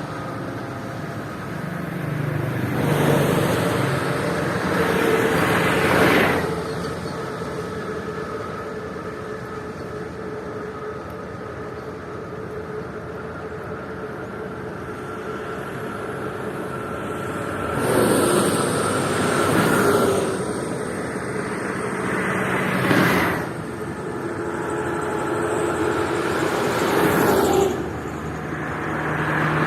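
Motorway traffic: vehicles passing at speed one after another, each swelling and fading with tyre and engine noise. There is a quieter lull in the middle, then several passes in close succession.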